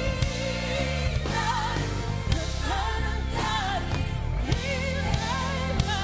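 Live gospel praise and worship music: a woman sings lead with a wavering vibrato and sliding runs, backed by a band of drums, keyboard and bass guitar.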